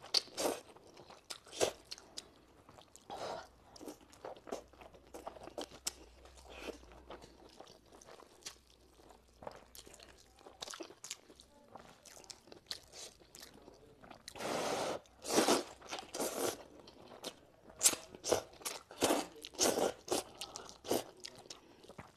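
A person eating hand-made wheat noodles close to the microphone: irregular wet slurping and chewing sounds. There are a few louder bursts in the second half.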